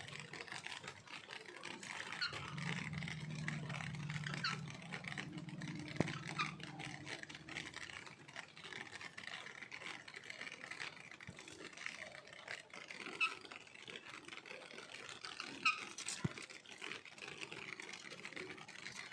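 Rain falling steadily, with a pet parrot giving a few short chirps now and then. A low engine hum passes through in the first few seconds.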